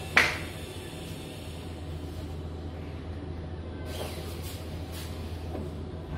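A sharp clunk as a uPVC sliding-folding window's sliding sash is pushed shut against its partner, followed by a few light clicks and knocks as the sashes and panels are handled. A steady low hum runs underneath.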